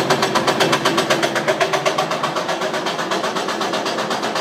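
A machine running with a steady, rapid rattling pulse, about eight beats a second, over a steady hum.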